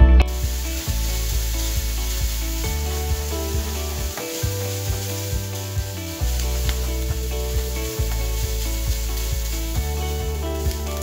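Chopped bacon sizzling as it fries in a nonstick griddle pan, with a utensil stirring and scraping it, giving a steady hiss dotted with small irregular clicks.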